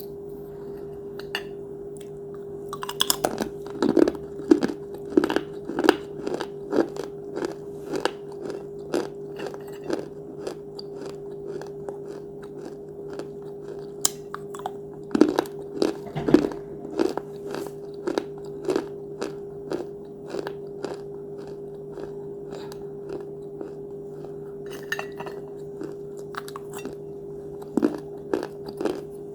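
A person biting and chewing crunchy mini clay pots: bouts of sharp crunches, about two a second, with pauses between. A steady low hum runs underneath.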